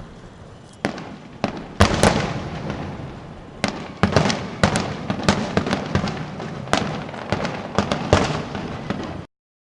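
Fireworks going off: a rapid series of sharp bangs and pops with crackling between them, the loudest about two seconds in. The sound cuts off abruptly just before the end.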